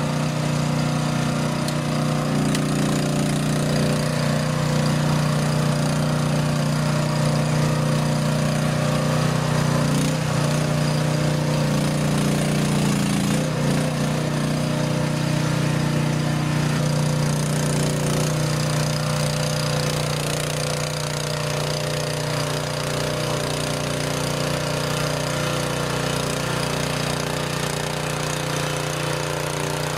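Engine of a Jansen RD-500 hydrostatic-drive tracked mini dumper running steadily as the loaded machine crawls along, a constant low hum with a slight change in tone partway through.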